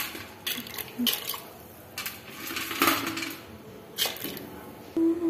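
Pieces of dough dropped by hand into dal in an aluminium pressure cooker, giving a series of short clinks against the metal pot and small splashes, about one a second.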